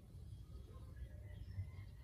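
Faint steady low rumble of room background noise, with faint thin whistling tones in the second half.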